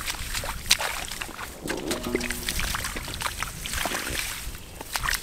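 Hands groping in shallow muddy water: a run of small wet splashes and squelches.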